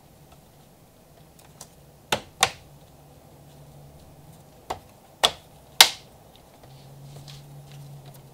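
Retaining clips of an Audi rings front emblem snapping into the grille as the emblem is pushed home: five sharp clicks, a pair about two seconds in, then three more about half a second apart.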